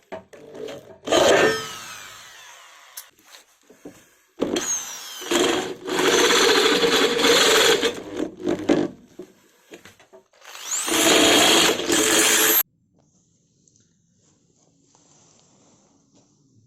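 Power drill running in three bursts: a short one, a long one of several seconds, and a last one whose pitch glides as the speed changes before it cuts off sharply.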